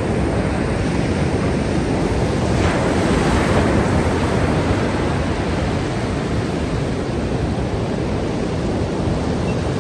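Ocean surf breaking and washing up the beach in a steady rush, swelling louder about three seconds in as a wave comes in.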